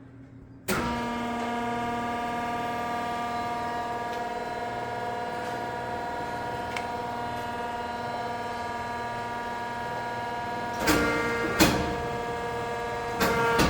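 Pacific Tri-Acro 35-6 CNC press brake's motor switching on less than a second in and running with a steady hum and whine. About eleven seconds in, and again near the end, the sound briefly surges with knocks as the ram is cycled.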